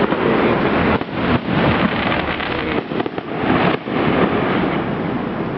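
Aerial fireworks going off in a dense barrage of overlapping bangs and crackling, heaviest in the first four seconds and then easing slightly.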